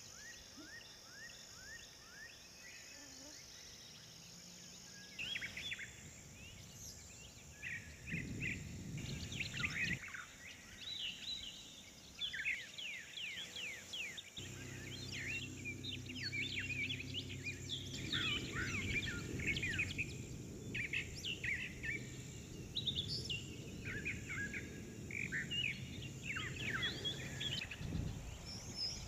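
Wild birds chirping and calling in many short, quick notes, over a low background rumble that sets in about eight seconds in and carries a steady hum from about fourteen seconds on. The background changes abruptly at several points where recordings are spliced together.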